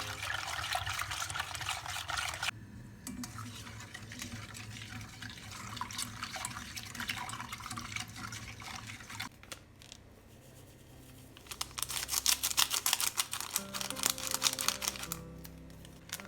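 Soft background music over kitchen sounds: liquid pouring or running for the first couple of seconds, then a quick run of clicks and clatter, as of utensils against a bowl, in the last few seconds.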